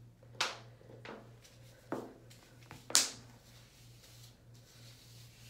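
A squeeze applicator bottle of color remover squirted onto wet hair in several short spurts, the loudest about three seconds in.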